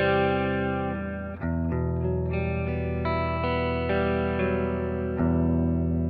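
Electric guitar played through a Valeton GP-200 multi-effects processor preset, with ringing, sustained chords and single notes over a held low note. The chord changes about a second and a half in and again near the end.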